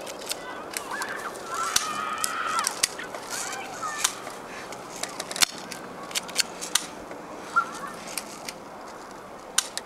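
Airsoft guns firing single sharp shots at irregular intervals, more than a dozen in all, with a couple of brief high-pitched calls about two seconds in and near eight seconds.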